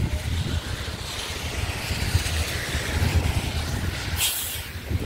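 New Flyer XD40 diesel city bus running close by, a steady low engine rumble under a wash of hiss. About four seconds in comes a short, sharp hiss of air from its air brakes.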